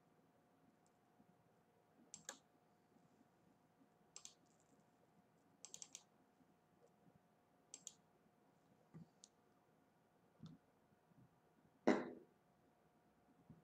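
Faint, sharp clicks and taps at irregular intervals, some in quick clusters, with one louder knock about twelve seconds in, over a faint steady hum.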